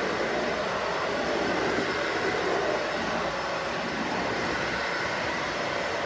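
Dyson Ball Animal 2 upright vacuum cleaner running, pushed across a hardwood floor: a steady rushing whir with a faint high whine.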